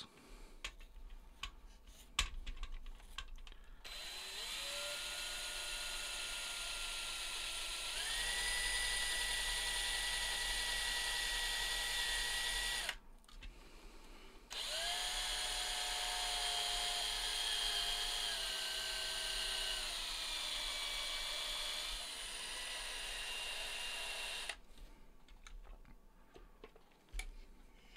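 Power drill with a quarter-inch bit drilling a hole into the enclosure's case: the motor spins up about four seconds in and steps up in speed, stops briefly about halfway, then runs again for about ten seconds before stopping. Short handling clicks come before and after the drilling.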